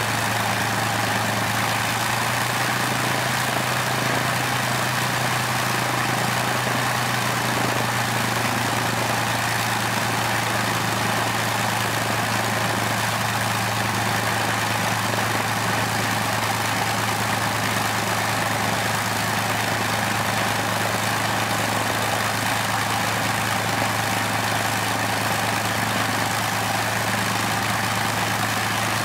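Rolls-Royce Merlin V12 engine of a de Havilland Mosquito running steadily on a ground run, a deep even drone that holds the same speed throughout.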